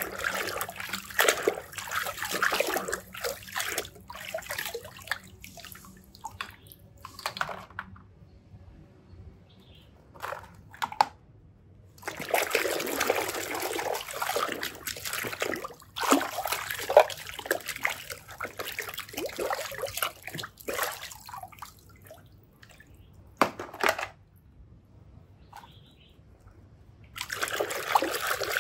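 A hand stirring and squeezing thick muddy water in a plastic tub: wet squelching and sloshing in irregular spells, with two quieter pauses of several seconds between them.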